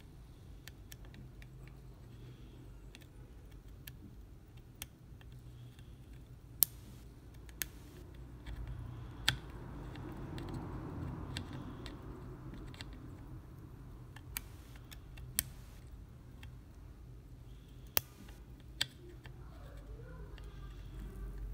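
Scattered small sharp clicks, about eight spread out, of metal tweezers and a soldering iron tip touching a PlayStation 4 controller circuit board during hand soldering, over a faint steady low hum.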